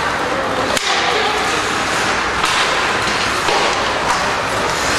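Ice hockey game sounds: a steady hiss of play and arena noise, with a sharp crack about a second in and fainter knocks later.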